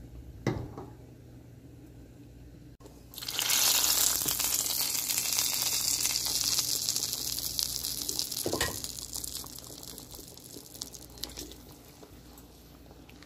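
Hot oil with fried panch phoron poured into a pan of sour olive and small-fish curry: a sudden loud sizzle about three seconds in that slowly dies away over several seconds. A few light clicks of the spatula come before it, and a single clink partway through.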